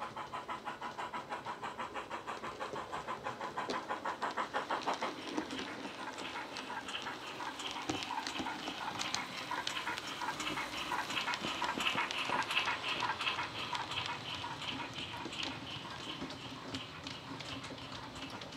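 The DCC sound decoder of a Hornby Large Prairie 61XX model steam tank locomotive, playing steam exhaust chuffs through its small speaker as the model runs. The chuffs come in a quick, even beat of about four a second, plainest in the first few seconds.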